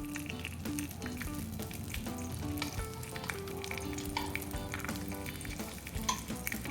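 Food sizzling in a frying pan, with scattered light clicks, under a cheerful background melody.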